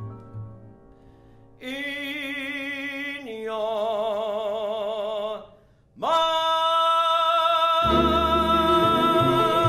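A man sings the song's closing notes with wide vibrato over piano and bass: two sustained notes, a short break, then a long, loud held final note, with the piano and bass coming in fully under it near the end.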